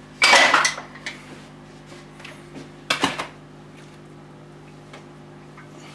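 Kitchenware being handled on a counter: a loud clattering scrape just after the start and a sharp clink about three seconds in, as a small glass bowl with a pastry brush and a metal baking tray are set down and moved. A steady low hum runs underneath.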